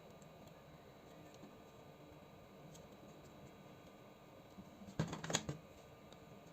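A brief cluster of sharp clicks and light clatter about five seconds in, with a few faint ticks before it: small hard parts being handled during work on a PS4 controller.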